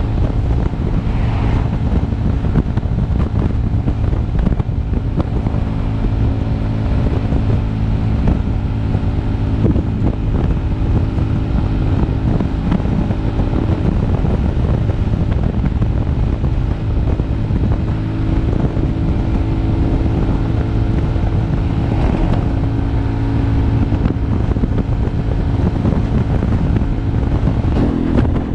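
Scrambler motorcycle's engine running steadily at cruising speed, heard from the rider's seat, with heavy wind buffeting the microphone. The engine note shifts slightly near the end.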